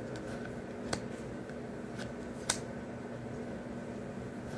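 Tarot cards being handled and laid out, giving a few sharp card snaps and taps; the strongest comes about two and a half seconds in. A steady faint hum runs underneath.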